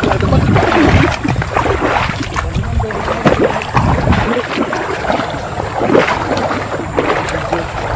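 Water sloshing and splashing unevenly as several people wade through deep water.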